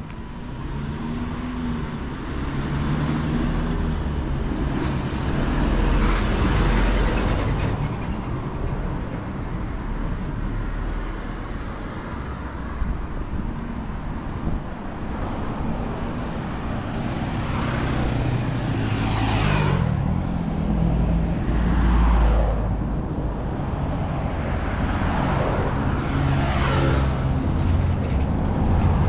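Road traffic: motor vehicles passing one after another, each swelling and fading, over a continuous low engine hum, with several close passes in the second half.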